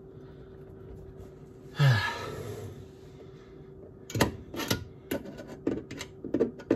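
A short frustrated sigh about two seconds in, then a run of irregular clicks and knocks as a screwdriver works the screw of a sink's metal mounting clip under the countertop.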